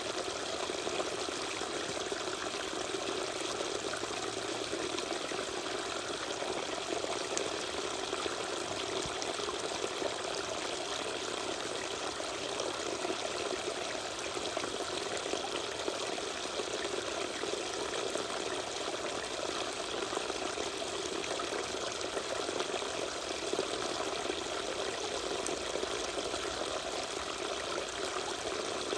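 Tiny waterfall, water pouring and splashing in a steady, unbroken rush.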